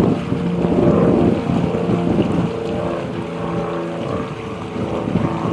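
Vehicle engine running steadily with a low rumble, mixed with wind noise on the microphone.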